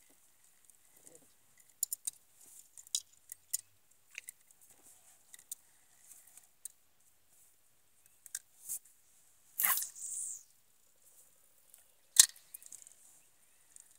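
A fishing rod being cast: a swish about ten seconds in, followed about two seconds later by a single sharp click, amid scattered small clicks and knocks of handling rod and reel.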